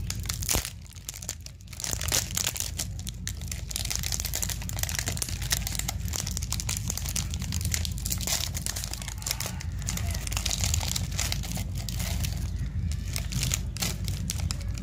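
Plastic snack and biscuit wrappers being crinkled and torn open by hand: a continuous close crackling, with a short lull about a second in.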